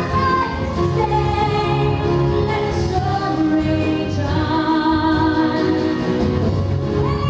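A woman singing with instrumental backing, her long held notes wavering with vibrato.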